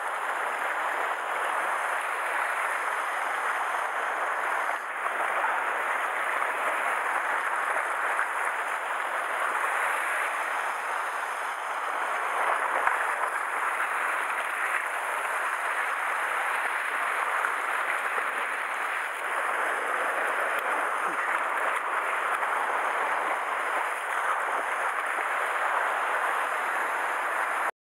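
Sea surf washing and foaming over shoreline rocks, a steady rushing hiss that swells and eases a little.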